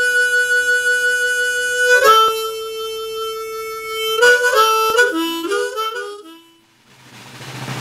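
Blues harmonica holding long, steady notes, then playing a short falling run and fading out. A low steady hum fades in near the end.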